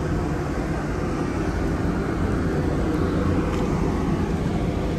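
Steady low rumble and hum of vehicle machinery and street traffic, with no break.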